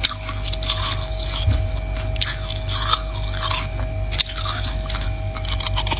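Freezer frost being bitten off and chewed, irregular crunching with a few sharp bites: one at the start, one about two seconds in and one about four seconds in.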